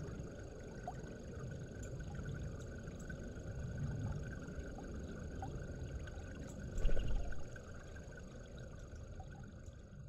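Steady low outdoor background rumble with a faint constant hum, a few faint short chirps, and a brief louder thump about seven seconds in.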